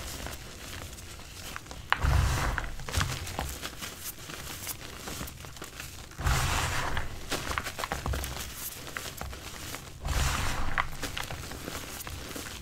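Hands squeezing and crumbling reformed gym chalk, chunks and loose powder: a gritty crunching and hissing with small crackles. Three louder handfuls come about four seconds apart.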